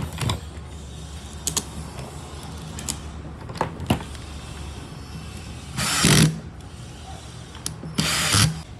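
Makita 9557NB angle grinder, fitted with a new armature, switched on twice in short bursts of about half a second each, between light clicks and taps of handling.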